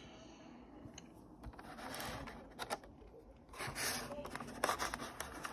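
Clear plastic packaging tray being handled and worked open: rustling and scraping with scattered sharp clicks, louder in the second half.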